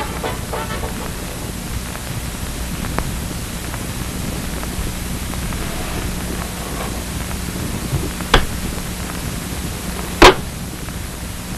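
Steady hiss with a low hum, as the last notes of a swing tune fade in the first second. Two sharp clicks follow, one about eight seconds in and a louder one about ten seconds in.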